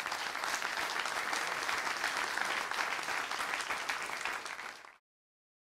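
Audience applauding, many hands clapping together, which stops abruptly about five seconds in.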